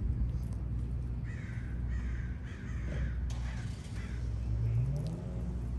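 Crows cawing: a quick series of harsh caws starting about a second in, over a low steady street rumble. A low hum rises in pitch near the end.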